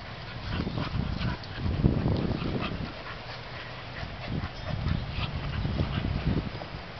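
Dogs making low sounds close by, in irregular bursts about a second long, the strongest around two seconds in and again from about four to six seconds in.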